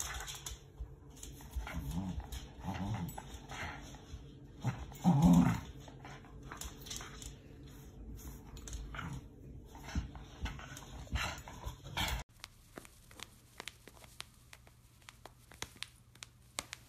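A dog growling and grunting in short bursts while digging and tugging at a fleece dog bed, with scratching and rustling; the loudest growl comes about five seconds in. After about twelve seconds it gives way to quieter scattered soft clicks.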